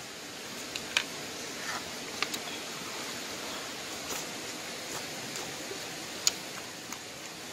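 A person eating by hand from a bowl: a few short, sharp clicks and mouth smacks over a steady rushing background noise.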